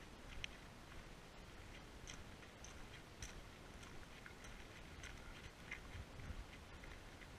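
Faint, scattered light ticks and crunches of footsteps on a dirt-and-gravel forest path, over quiet outdoor ambience.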